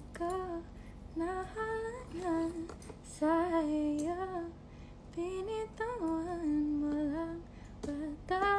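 A young woman singing a tune without clear words, half-humming in short phrases, several of them ending on a held note.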